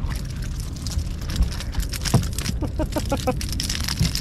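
Wind buffeting the microphone, under crackling splashes of water as a hooked fish thrashes at the surface and is lifted out.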